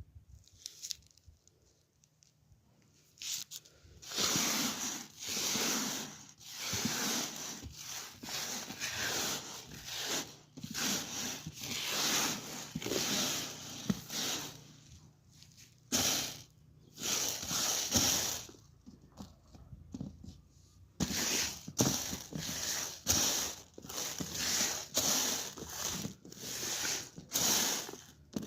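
Wheat grain being cleaned by hand, shaken and tossed so the grains rustle and swish in repeated strokes about a second apart, with a short pause partway through.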